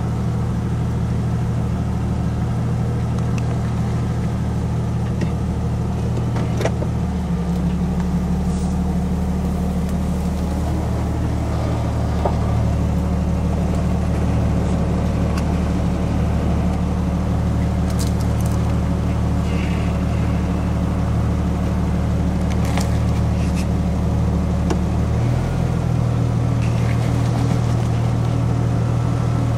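Jeep engine running steadily at low idle while crawling over rocks, its note shifting slightly about a quarter of the way in and again near the end. A few faint knocks sound over it.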